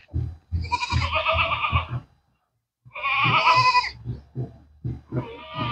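Goat buck bleating: two long, wavering bleats about a second apart, with soft low thumps underneath.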